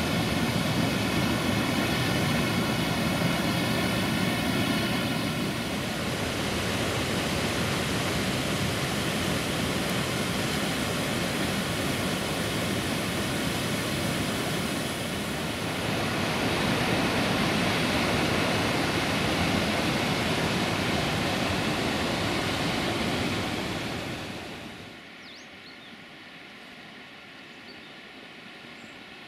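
Rushing water of the Vadu Crișului waterfall on the Crișul Repede river: a steady, loud rush that drops to a much quieter flow about 25 seconds in.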